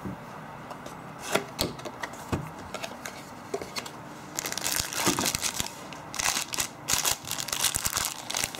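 A cardboard box being opened, with a few light clicks and scrapes from the flaps. From about four seconds in comes a stretch of dense crinkling as the clear plastic bag around the phone is handled.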